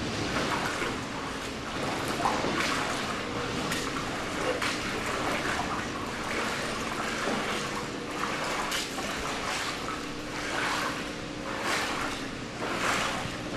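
Floodwater running and trickling steadily in a subway station, with a few brief splashes in the second half and a faint steady hum underneath.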